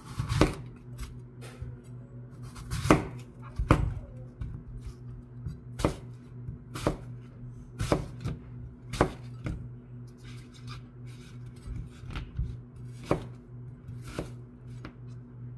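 A chef's knife slicing through a whole apple, each stroke ending in a sharp knock on a plastic cutting board. There are about a dozen knocks at uneven intervals.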